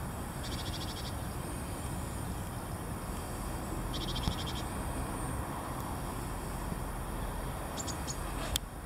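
Outdoor ambience: a low wind rumble on the microphone, with two short, rapid buzzing trills about three and a half seconds apart and faint high chirps from small birds or insects.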